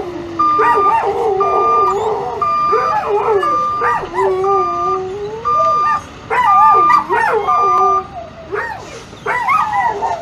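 A pack of canines howling and yipping in many overlapping, gliding voices, over the steady pulsed beeping of a vehicle's reversing alarm. The beeps come about once every three-quarters of a second and stop near the end, while the howling goes on.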